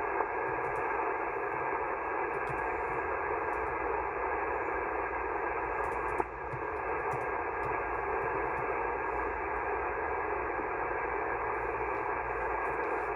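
HF amateur radio receiver hiss: steady single-sideband static in the narrow voice passband while the band is monitored, with one short click about six seconds in.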